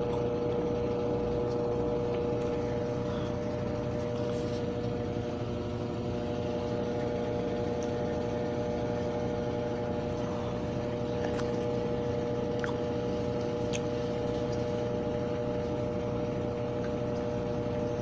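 Brastemp 12 kg top-loading washing machine in its intermediate spin cycle: the motor and spinning basket run at a steady speed with a steady hum and a few faint ticks.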